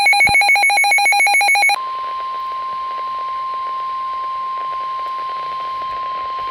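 NOAA Weather Radio alert: a burst of rapidly chattering digital data tones, the SAME header that encodes the warning, stops about two seconds in and gives way to the steady single-pitched 1050 Hz Warning Alarm Tone, which holds until the end.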